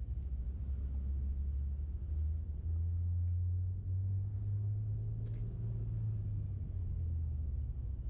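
Low, steady rumble of city street traffic, moving up a little in pitch about two to three seconds in, with a few faint clicks.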